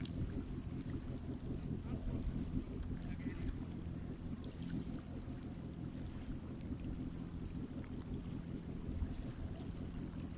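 Sea waves washing in a low, steady rumble, with a faint steady hum underneath.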